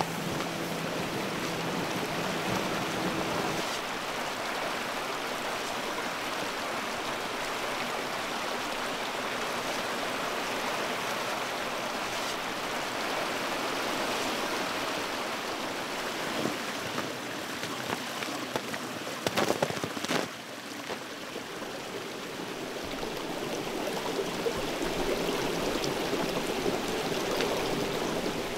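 Small icy woodland brook running over rocks in a little cascade, a steady rushing and splashing of water. A few brief clicks come about two-thirds of the way through.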